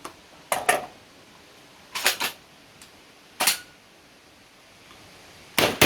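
Four 12-gauge shotgun shots fired in quick succession, about a second and a half apart, the last the loudest.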